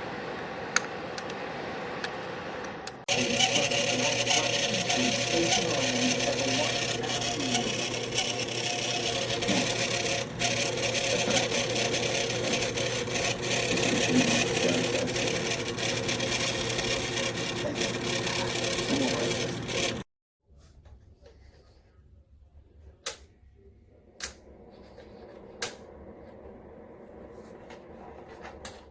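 Black+Decker BHDC201 space heater's fan running with a rubbing, rattling texture, jumping louder about three seconds in and cutting off abruptly about twenty seconds in; afterwards a faint whir with a few sharp clicks.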